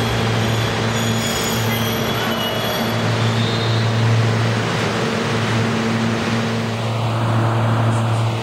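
New York City subway train rolling along a station platform: a loud steady rumble with a low motor hum underneath. A faint high wheel squeal comes in about a second in and fades by about three and a half seconds.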